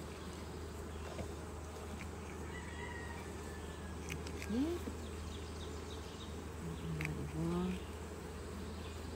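Honeybees buzzing around an open hive as a steady hum. Twice a bee comes louder and briefly sweeps in pitch, about four and a half and seven and a half seconds in.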